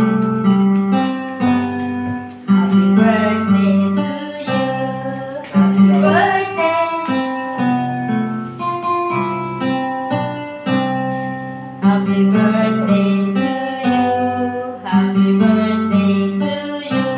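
A song playing, with guitar and a woman singing.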